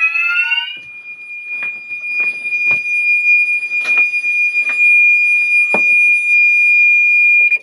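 Fire alarm sounders going off. A rising, sweeping multi-tone siren stops under a second in, leaving a steady high-pitched tone with a few scattered clicks. All of it cuts off suddenly near the end as the system is silenced.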